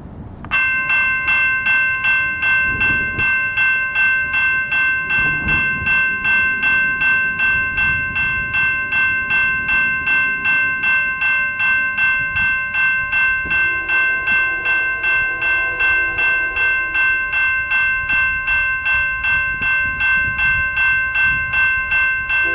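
Railroad grade-crossing warning bell starting suddenly about half a second in and then ringing steadily, about two strikes a second, as a train approaches.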